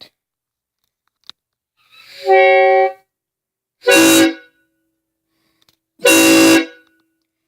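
Homemade PVC replica of a Nathan K5HL five-chime train horn blowing three loud blasts, each a chord of several notes sounding together. The first, about two seconds in, swells up over half a second; the next two start sharply and are shorter.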